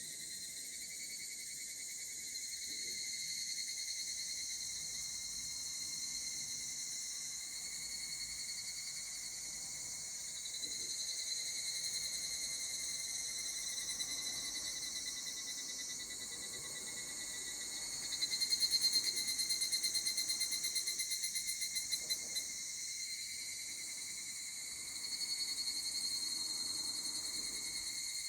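Higurashi cicadas (Tanna japonensis) calling, several overlapping in a steady high chorus. A nearer one's rapidly pulsing call grows louder about two-thirds of the way through, then fades a few seconds later.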